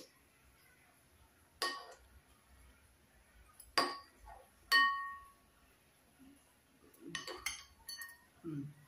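Metal fork and ceramic soup spoon clinking against a porcelain soup bowl: single clinks a couple of seconds apart, one ringing on briefly, then a quick run of clinks near the end.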